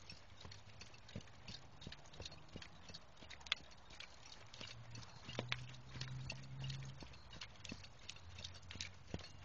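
Hoofbeats of a saddled horse moving at a brisk gait around a dirt pen: a quick, uneven run of soft strikes on the dirt footing. A low hum swells for a couple of seconds around the middle.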